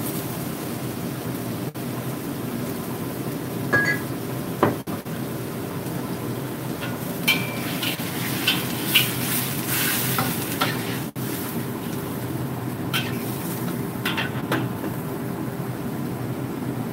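Stir-frying in a wok: a steady sizzle over a constant hum, with a spatula scraping and clinking against the wok now and then, most busily in the middle.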